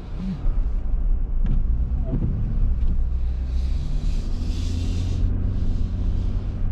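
Inside the cab of a 2022 Toyota Tundra pickup under way on a slushy road: a steady low rumble of engine and road. A brief hiss rises and fades about four seconds in.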